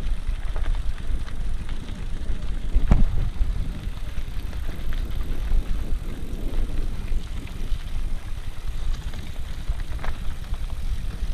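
Vehicle driving over a rough desert track: a steady low rumble of engine and tyres with small rattles, and one sharp knock about three seconds in.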